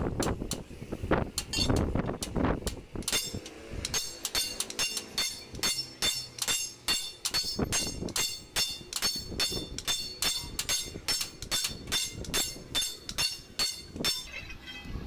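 Sledgehammers striking a Tata truck leaf-spring leaf on an iron block, two men taking turns, about three blows a second, each with a bright metallic ring. The leaf is being hammered to re-arch it and raise the spring's height.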